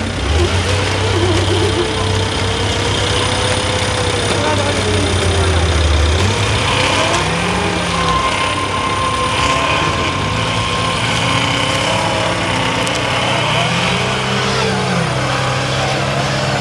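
Off-road race vehicle engines running, with the pitch rising and falling as the engines rev, as a buggy works through deep mud; a steady low engine note holds for the first several seconds. Voices are heard in the background.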